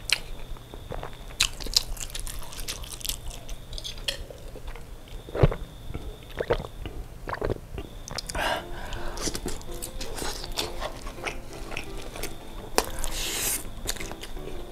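Close-up eating sounds: chewing and wet, sticky mouth noises from sausage in oily chili sambal mixed with rice eaten by hand. There are many small clicks and smacks, and one louder knock about five and a half seconds in.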